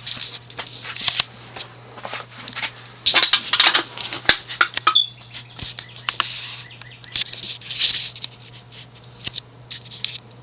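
Antique Emerson 'Roundnose' ceiling fan running on its low speed, its speed coil giving a steady low buzz. Irregular clicks and rattles sound over it, loudest about three to four seconds in and again near eight seconds.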